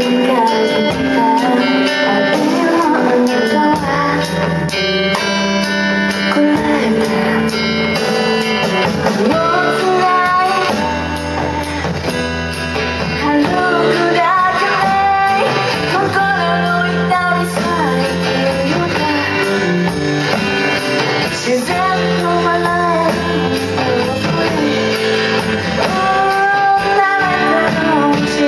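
A band playing a song live: guitar chords with a singer's melody over them and cymbals keeping time.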